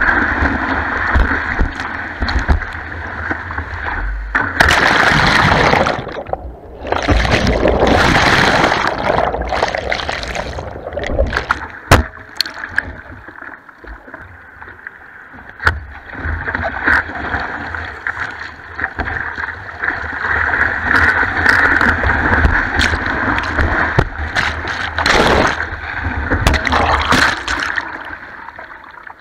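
Breaking ocean whitewater rushing and splashing around a surfboard-mounted camera, with loud surges about five and eight seconds in as foam washes over it, and a couple of sharp knocks of water on the camera housing near the middle.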